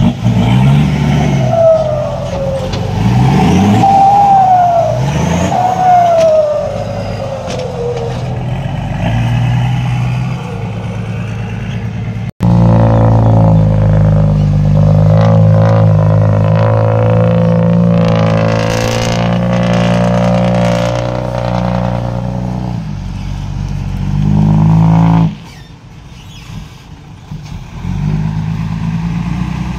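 Diesel tipper truck engines with loud exhausts revving hard under load, the pitch rising and falling several times. A sudden cut about twelve seconds in leads to a loud engine held at high revs, which drops abruptly to a quieter idle near the end.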